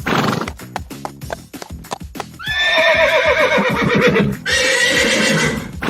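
A run of quick clicks, then a long neigh-like animal call falling in pitch and a second call after it, over background music.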